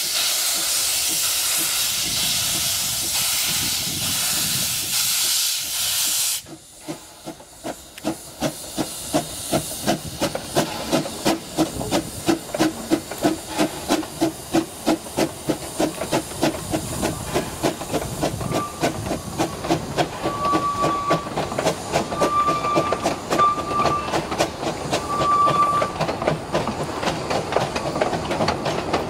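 Narrow-gauge steam locomotive: a loud hiss of steam that cuts off abruptly about six seconds in, then the steady beat of its exhaust chuffs, a few a second, as it pulls away with its train. From about the middle on, short high toots of the locomotive's whistle sound several times over the chuffing.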